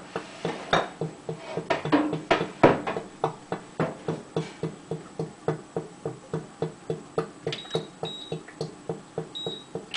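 Background music with a steady beat, about three notes a second. Two knocks sound about a second and about three seconds in as the rotisserie spit is handled. Near the end come several short high electronic beeps as the rotisserie oven's control buttons are pressed.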